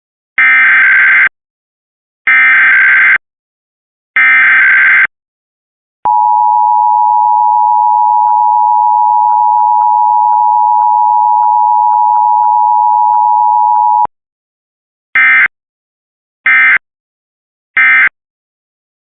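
Emergency Alert System signalling: three squawking digital header bursts, then a steady attention tone held for about eight seconds. Three short end-of-message bursts follow.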